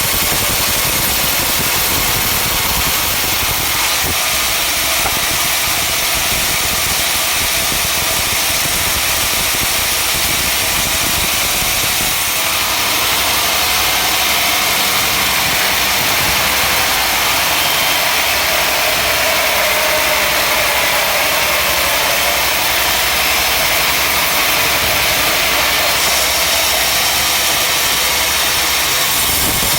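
Sawmill machinery running steadily with a dense, loud mechanical noise. Its tone dips slightly and recovers past the middle.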